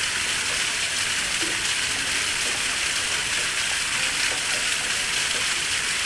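Waterfall, water falling and splashing in a steady, even rush with no change in level.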